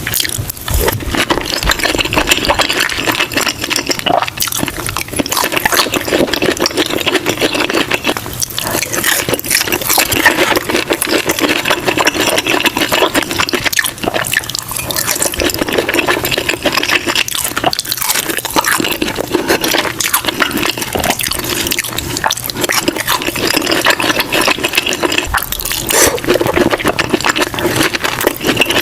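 Close-miked eating sounds: continuous wet chewing and mouth noises with many small clicks and smacks.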